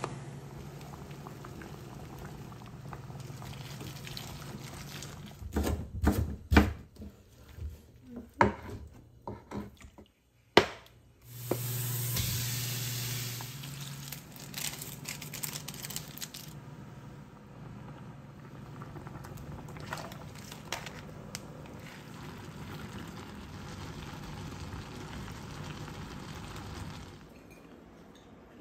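Water bubbling at the boil in a pan, with a run of sharp knocks and clinks from cooking utensils. About halfway through, water is poured into the pan with a loud rush, then a steady simmering hiss.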